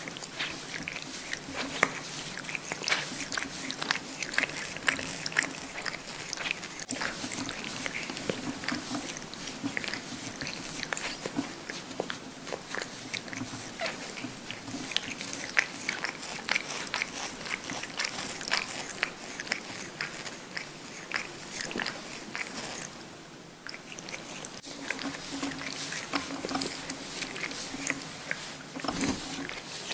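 Cat grooming itself, licking its paw and washing its face: a rapid run of wet licking clicks, with a short pause about three quarters of the way through.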